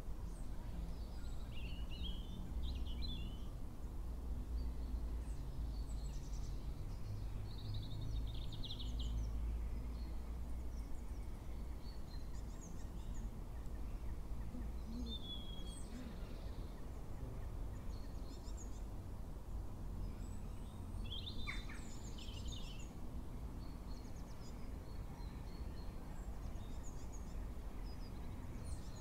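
Low, steady outdoor background rumble with short bird chirps and calls scattered throughout, including one call that drops in pitch a little past the middle.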